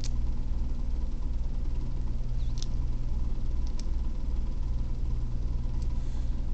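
Air conditioner running with a loud, steady low hum, with a couple of faint clicks partway through.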